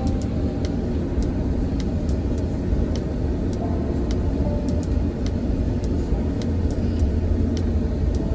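Steady low rumble inside an airliner cabin as the plane taxis, from its jet engines and air system, with light scattered ticks and rattles throughout.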